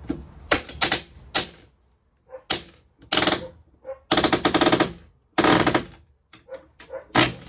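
Pneumatic nail gun firing nails through siding into a wall frame: several sharp shots in the first second and a half, then a run of louder, longer bursts of rapid clatter.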